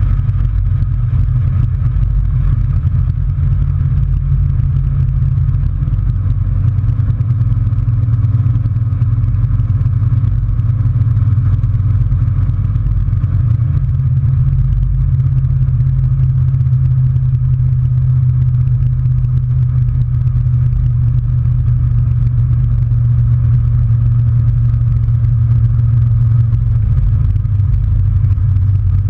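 Chevy S-10 pickup's 383 stroker small-block V8 under way at a steady cruise, its exhaust giving a steady low drone. The engine note rises slightly about halfway through and drops back near the end.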